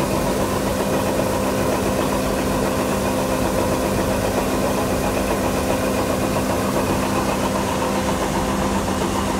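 Farm machine's engine running steadily at a constant speed: an even, loud hum with several unchanging tones.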